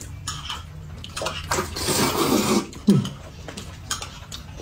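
Noodles slurped noisily from a paper cup: a few short wet slurps and one longer slurp lasting over a second, in the middle.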